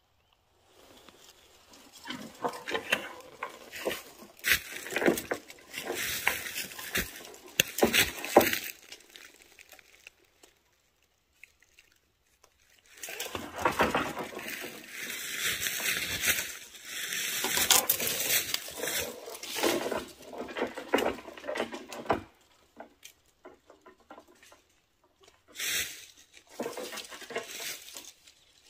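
Rustling, scraping and knocking from handling a long telescopic collecting pole, in two long stretches of irregular clatter with a quiet gap between.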